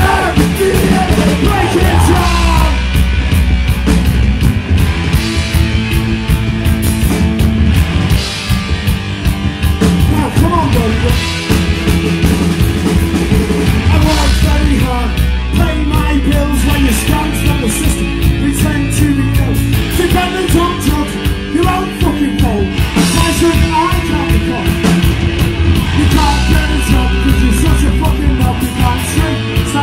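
Punk rock band playing live, loud and continuous, with a driving drum beat under the guitars and bass and shouted vocals.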